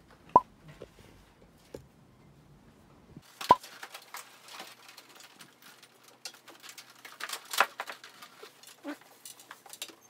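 A few sharp clicks, then a busy run of plastic knocks and clicks as an air conditioner's indoor unit is lifted and hooked onto its wall mounting plate. One knock near the start of that run and another about three-quarters through are the loudest.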